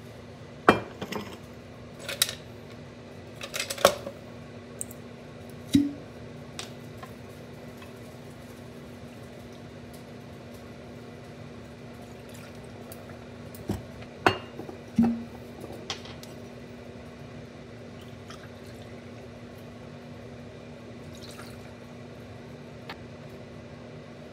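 Glass liquor bottles clinking against a metal cocktail shaker and a martini glass while liquor is poured into the shaker. There is a run of sharp clinks in the first few seconds and another around the middle, with quieter pouring in between.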